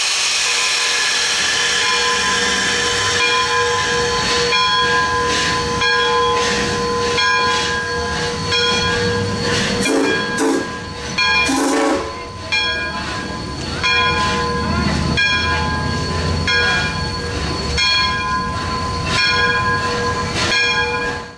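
Baldwin steam locomotive at close range: a loud rush of steam in the first few seconds, then a steady hum with a ringing strike repeating about every half to three-quarter second. Short rushes of steam come again twice around the middle.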